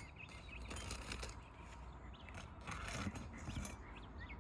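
Faint, scattered scraping on asphalt roof shingles as the laminated tabs are lifted and tested for bonding. Small birds chirp repeatedly in the background from about halfway through.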